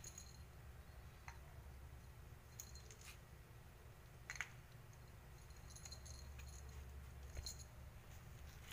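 Faint scattered clicks and taps over a low steady hum, the clearest about halfway through: a cat pawing at a mouse on a laminate floor.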